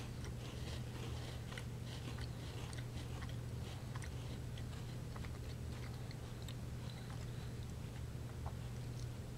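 Two people chewing crunchy chocolate-cream-filled Hello Panda biscuits, with faint crunching clicks that thin out after the first few seconds. A steady low hum runs underneath.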